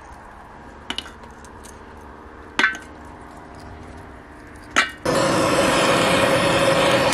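Pieces of wood kindling clatter into a steel rocket stove's feed door, three sharp knocks a second or two apart. About five seconds in, a handheld gas torch lights with a sudden loud, steady hiss as it is aimed into the door to start the fire.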